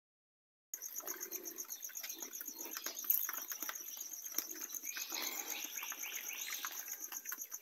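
Piglets chewing and crunching dry maize kernels at a trough, a steady patter of short clicks, over a high, steady pulsing insect trill. A few short squeaky calls come about five to six and a half seconds in.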